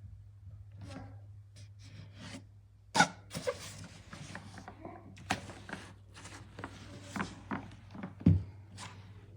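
Handling noises: irregular knocks and clicks with rubbing scrapes between them, two knocks much louder than the rest, over a steady low hum.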